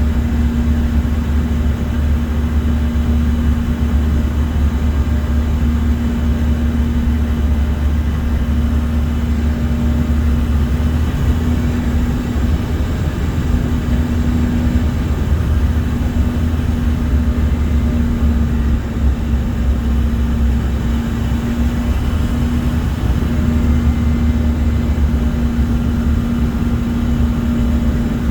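Steady airliner cabin noise: a deep, constant rumble of engines and airflow with a steady hum running through it.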